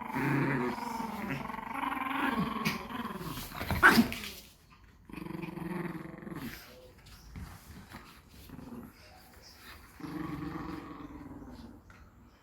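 A dog growling in bouts: one long growl lasting about four and a half seconds with a louder, sharper outburst near its end, then two shorter growls after pauses.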